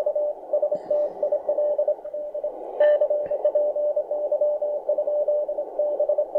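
Morse code (CW) received on a Tecsun PL-330 shortwave receiver: a single steady tone keyed on and off in dots and dashes, over a band of hiss heard through the radio's narrowed filter.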